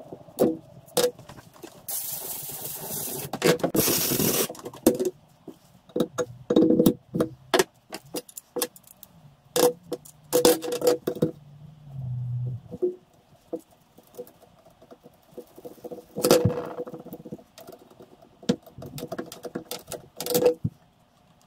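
Metal hand tools clinking, clicking and scraping against the vice and bench while a radius arm's bronze bush is reamed by hand with a reamer and tap wrench. About two seconds in come two hissing bursts, the second one the loudest. A low hum rises in steps from about eight to thirteen seconds in.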